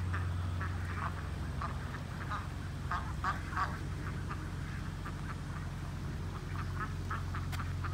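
A flock of domestic ducks, Indian Runners among them, quacking in quick runs of short calls, thinning out a little past the middle, over a steady low hum.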